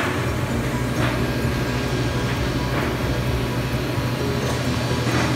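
Steady low mechanical hum of running machinery, with a few faint short clicks over it.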